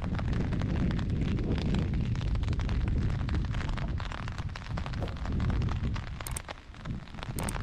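Rain pattering as many small ticks, under gusts of wind buffeting the microphone in a heavy, uneven low rumble that eases briefly about six and a half seconds in.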